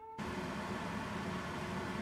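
A piano note dies away, and just after the start a steady rushing noise of kitchen background sound comes in abruptly and holds even.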